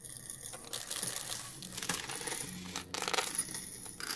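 Pennies clinking and sliding against each other on a small coin pusher's playfield as the stepper-motor-driven pusher shoves them forward, with a few sharper clinks. A faint low hum from the stepper motor comes and goes underneath.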